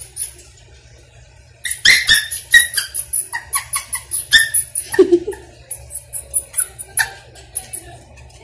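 A small dog scrambling on tiled stairs: rapid sharp clicks of claws on tile, mixed with short high squeaks. It starts about two seconds in and thins out toward the end.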